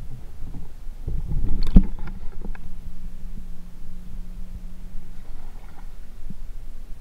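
Muffled water rumbling and sloshing around a camera held underwater beside a kayak, with a loud splash-like knock about two seconds in as it breaks the surface. After that come softer water sounds from paddling the kayak, with a faint low steady hum for a few seconds.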